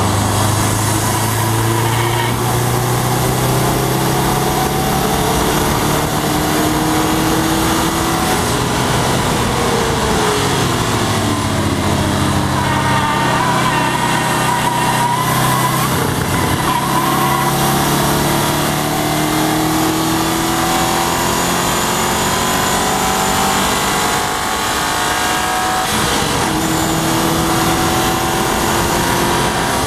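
A 2011 Subaru WRX's turbocharged flat-four engine under hard acceleration, climbing in pitch several times with drops between for gear changes and braking, over a steady rush of wind and road noise.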